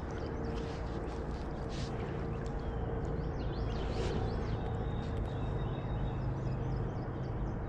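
Steady rushing of flowing stream water, with faint high chirps in the middle.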